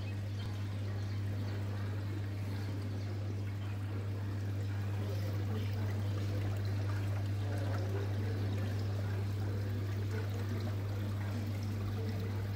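Steady low hum with a faint, even rushing noise over it, unchanging throughout.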